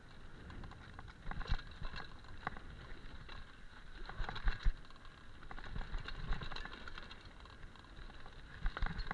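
Mountain bike riding fast down a dirt singletrack: tyre noise on the trail with irregular knocks and rattles as the bike hits bumps.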